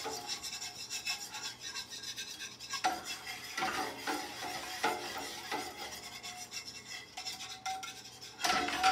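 A metal utensil stirring and scraping a thickening brown sauce around a skillet in irregular strokes.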